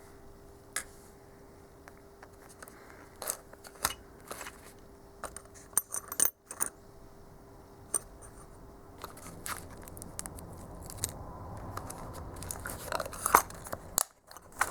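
Small carbide insert lathe turning tools being handled, giving scattered light metallic clicks and clinks, with some rustling that grows in the last few seconds.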